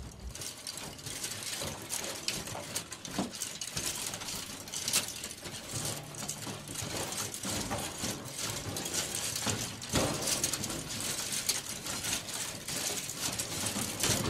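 An intro sound effect of dense, irregular crackling and clicking over a hiss, with no steady tone or beat.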